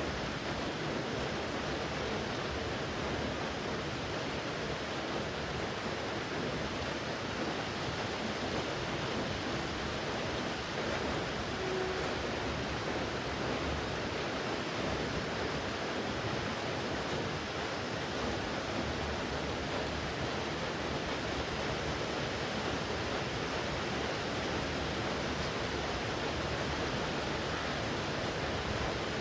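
Steady rain falling, an even continuous hiss with no breaks or changes in level.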